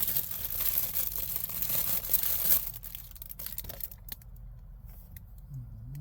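Hands working small car-door parts: rustling, crinkling handling noise for about two and a half seconds, then a run of sharp clicks, and a few lighter clicks as it quiets.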